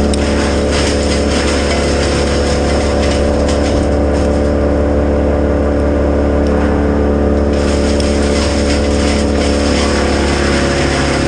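An engine running steadily at one even speed, loud and close, shifting slightly in pitch near the end.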